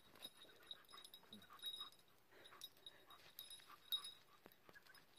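Near silence, with faint scattered clicks and brief high squeaks.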